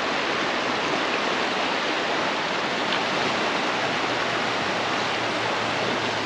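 Fast-flowing shallow river rushing over stones, a steady, even rush of water.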